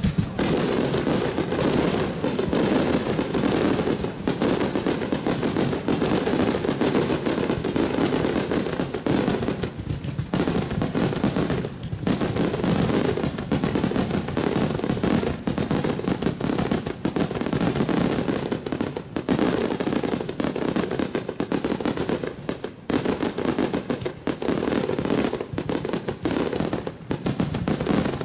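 Starmine fireworks barrage: a dense, rapid string of shell bursts and launches going off almost without pause, with brief lulls about ten and twelve seconds in.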